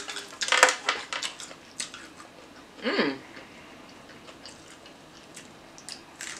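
Close-up eating sounds: mouth smacking and chewing, with small crackles and clicks from fried food being pulled apart by hand and bitten. The strongest crunch comes about half a second in, and there is a brief hum from the eater about three seconds in.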